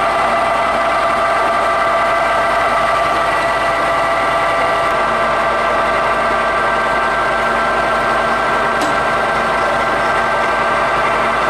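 Clausing Colchester 25-inch engine lathe running steadily under power, its headstock gearing giving a constant whine of several pitches over the motor's hum.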